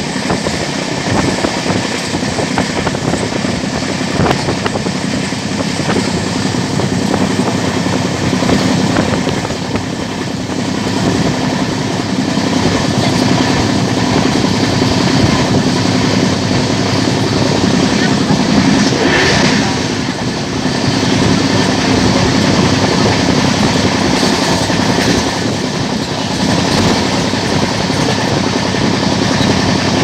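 Running noise of an LHB passenger coach at speed, heard at its open doorway: a steady rumble and rattle of wheels on the rails.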